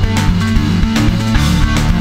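Rock song with electric guitars and drums keeping a steady beat.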